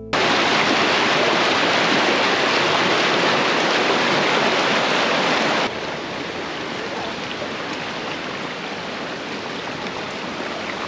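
Rushing river water: the Yarra River running high and fast over rapids and along its banks, a steady even rush. A little past halfway it steps down suddenly to a quieter, steady rush.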